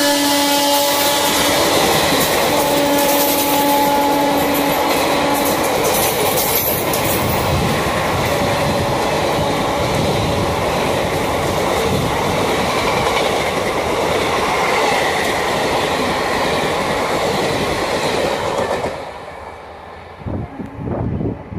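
Indian Railways WAP4 electric locomotive's horn held for the first five seconds or so, after a drop in pitch as the engine goes by. The express's coaches then pass at speed with a loud, steady rushing rail and wheel noise. The noise falls away sharply about 19 seconds in as the last coach passes.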